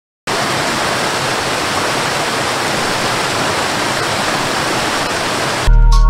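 Waterfall: a steady rushing of water that cuts in suddenly just after the start and breaks off near the end, where music comes in.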